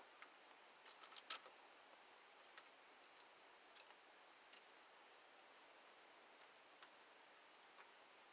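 Faint, scattered small clicks of screws and hub parts being handled while the steering wheel hub adapter's screws are lined up and started hole by hole: a quick cluster of several clicks about a second in, then single clicks every second or so.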